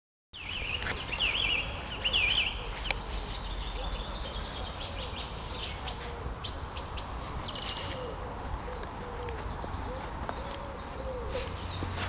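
Wild birds singing and chirping outdoors. One bird sings a loud warbling phrase twice in the first three seconds, then many shorter, quieter chirps and calls follow, over a low rumble.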